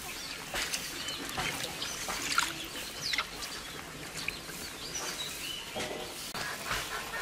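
Birds chirping in short, scattered calls, with brief splashes from hands washing dried jujubes in a bowl of water.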